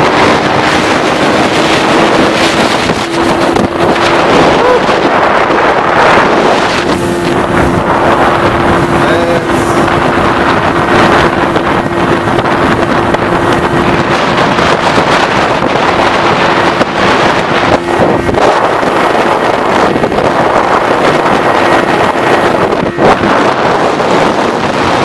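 1990 Evinrude 25 HP two-cylinder two-stroke outboard running steadily at cruising speed with the boat under way, and wind buffeting the microphone. The engine is a healthy one with a freshly rebuilt carburetor.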